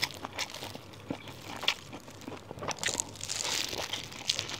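Close-up eating sounds: wet chewing and small mouth clicks on a big rolled flatbread stuffed with papaya shreds, with the crinkle of its plastic bag and plastic gloves. A fresh bite with louder crinkling comes about three seconds in.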